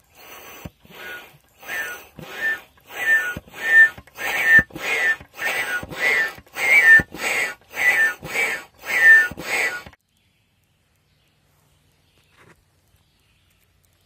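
Two-way air pump worked in quick strokes, pushing air through an old pipe into a dirt fire pot: a rushing puff with a whistling squeak on each stroke, about two a second, growing louder, then stopping about ten seconds in.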